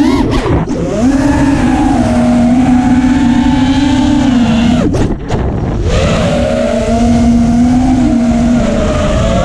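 FPV quadcopter's motors and propellers whining steadily under throttle, with a quick swoop in pitch at the start and a brief drop in pitch and level about five seconds in before it climbs back, as the throttle is eased off and punched again.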